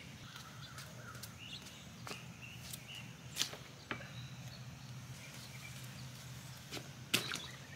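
Plastic flower pots of mums being set down into a water-filled inflatable kiddie pool: a few sharp knocks and bumps, the loudest about three and a half seconds in and near the end, over a steady low outdoor hum.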